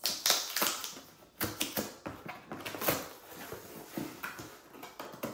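Cardboard box being opened by hand: a busy run of crackling, scraping and sharp clicks as the end flap is pulled open and the cardboard insert slides out.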